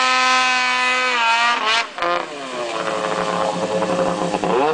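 Snowmobile with an MBRP aftermarket can exhaust running at high revs, then backing off about a second and a half in and running lower, revving up again near the end.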